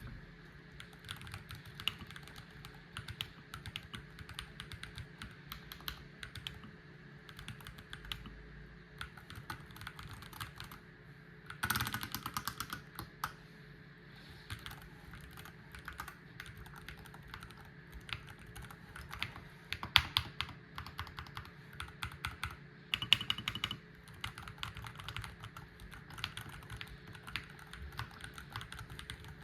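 Typing sound test on an Akko MOD68 HE, a 68% aluminium-cased keyboard with Hall-effect magnetic switches: steady clatter of keystrokes, with a few louder, faster flurries about twelve seconds in and again later on.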